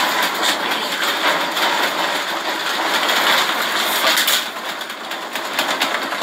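A room shaking in a magnitude 7.2 earthquake: continuous rattling and clattering of furniture and loose objects, easing a little about four and a half seconds in.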